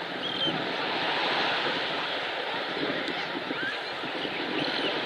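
Calm Black Sea surf washing on the shore: a steady, even wash of small waves.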